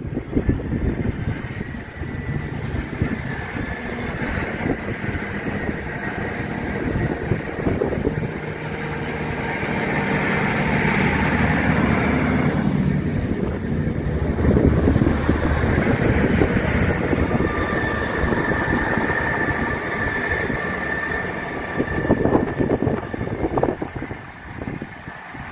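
Class 158 diesel multiple unit running past close by, its underfloor diesel engines and wheels on the rails a continuous rumble that is loudest about halfway through. A thin, steady high tone joins in during the later part.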